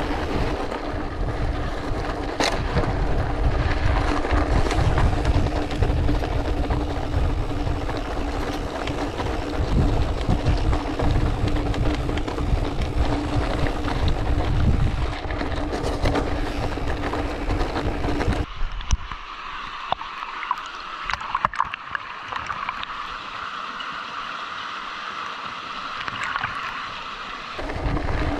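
Mountain bike rolling fast down a loose gravel track, heard from an action camera on the rider: wind buffeting the microphone and tyres crunching over stones. About two-thirds through, the low rumble drops away, leaving a thinner hiss with scattered clicks.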